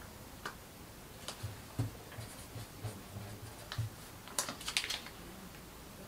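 Light clicks and taps of small objects being handled on a desk. A cluster of sharper clicks comes about four and a half seconds in, over a quiet room.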